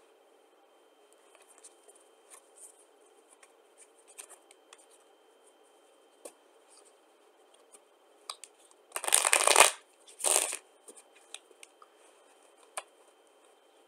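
A deck of UNO playing cards handled on a carpet, giving soft scattered clicks as the deck is split, then riffle-shuffled twice in quick succession about nine and ten seconds in, the loudest sounds here.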